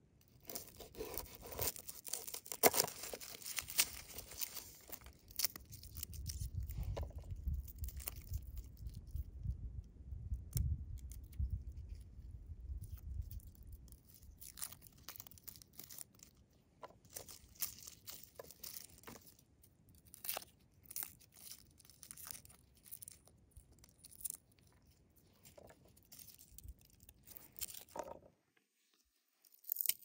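Garlic bulb being cut with a knife on a wooden board, then broken into cloves and peeled by hand: crisp crackling and tearing of dry papery garlic skins. The crackling is densest in the first few seconds and comes in scattered bursts later, with a low rumble for several seconds around the middle.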